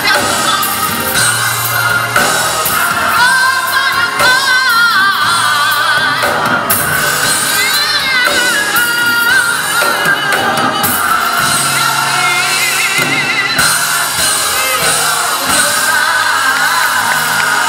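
Gospel choir singing live with band accompaniment, a lead singer's voice wavering and running in ornamented lines above the choir.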